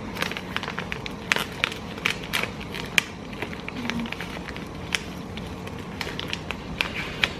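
A printed plastic tea sachet crinkling and crackling in the hands as it is worked open at the corner: irregular sharp crinkles throughout, the loudest about three seconds in.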